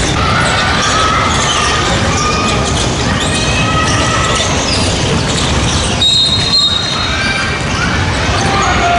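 Basketball game noise in a large echoing gymnasium: players and bench voices calling out, with short squeaks, and a brief high referee's whistle about six seconds in.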